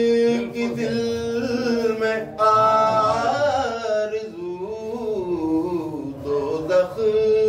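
A man singing devotional Urdu verse solo, reading from a book. He holds a long note for about the first two seconds, moves through bending melodic turns, and holds another note near the end.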